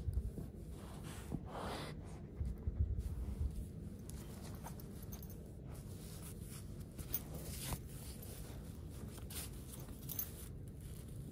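Close rustling and scratching of a hand rubbing a dog's fur and the fleece blanket under it, with low bumps of handling noise near the start and again about three seconds in, and a few short sharp scratches later on.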